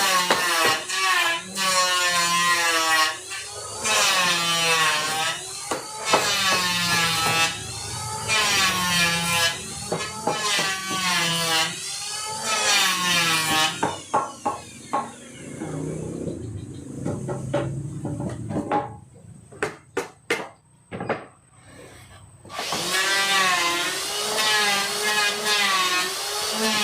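Wood being sawn by hand in steady strokes, about one a second, the blade ringing with a pitch that bends on each stroke. The sawing pauses for a few seconds, broken by several sharp knocks, then starts again near the end.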